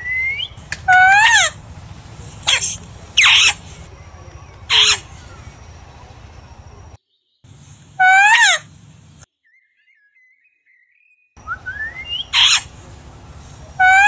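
Rose-ringed parakeets calling: about six loud calls, each sliding down in pitch, with a short rising call near the start and another near the end. The sound cuts out to near silence for a couple of seconds in the middle.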